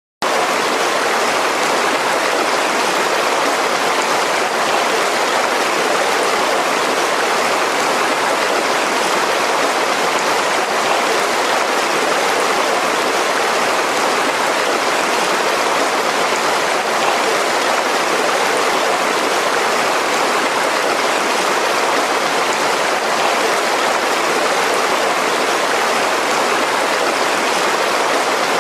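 Mountain river rushing over rocks, a constant, even flow of water.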